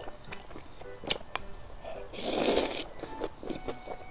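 Close-up eating sounds of wide, oily biang biang noodles: wet mouth clicks while chewing, then one loud slurp of a mouthful about two seconds in. Faint background music underneath.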